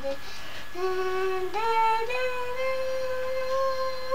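A young girl's voice singing a few long notes without words, sliding up in steps and then holding one note for over a second.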